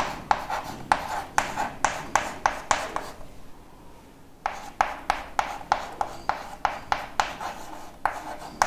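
Chalk writing on a blackboard: short sharp taps and scrapes of the chalk, a few strokes a second, with a pause of about a second and a half just past the middle.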